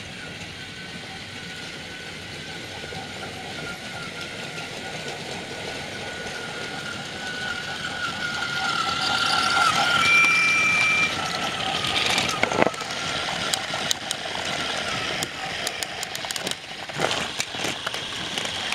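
Motors of battery-powered Trackmaster toy trains whining steadily along plastic track, growing louder as the engines pass close about halfway through, with a brief high tone around then. In the second half, irregular clicks and clacks of the toy wheels and cars on the track.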